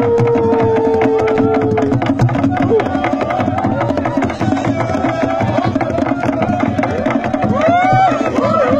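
Drums beating a fast, dense rhythm, with many voices singing and calling over them: music for dancing. There is a long held high note in the first two seconds and another call near the end.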